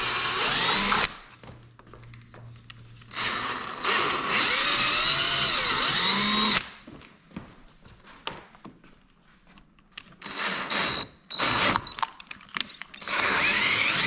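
Cordless drill with a large twist bit boring holes through the Corvette's rear body panel, enlarging pilot holes to final size for rivet nuts. It runs in four bursts of one to three seconds, its whine rising and falling as the trigger is worked.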